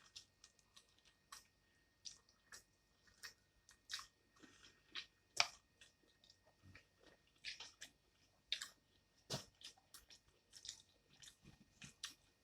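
Chewing and biting into fried fish and shrimp, close to the microphone: soft, irregular crunches and wet mouth clicks, a few a second.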